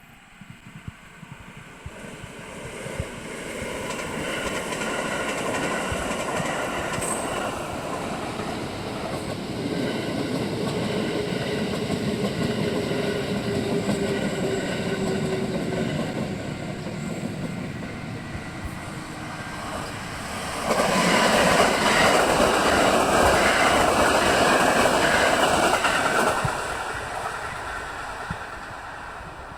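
Electric train running past on the tracks, building up over the first few seconds with a slowly falling whine under it. It is loudest for about five seconds some two-thirds of the way through, then fades away.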